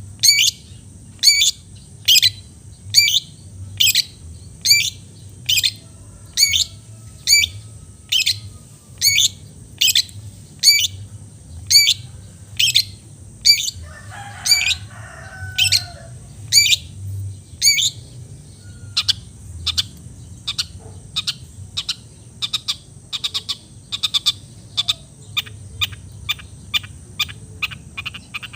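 A long-tailed shrike (cendet) calls over and over in short, sharp notes, about one a second at first, then quicker and shorter notes, two or three a second, in the second half. A brief lower call breaks in about halfway through.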